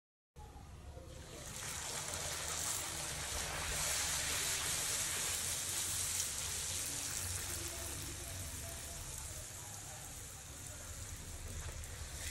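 Hot oil sizzling steadily as a poori deep-fries in a kadai, a dense hiss with a low hum beneath it. It starts after a brief silent gap at the very start and builds up over the first second or two.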